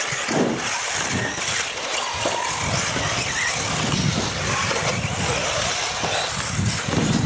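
Radio-controlled off-road model buggy running laps on a track, its motor rising and falling in pitch with speed over a steady background hiss.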